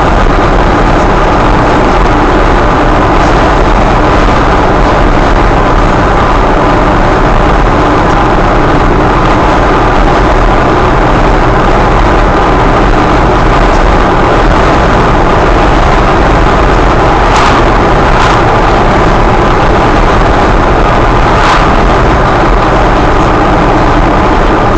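Engine and road noise of a vehicle driving at speed, as heard inside its cab: a loud, steady drone with a low hum. A few brief clicks come in the second half.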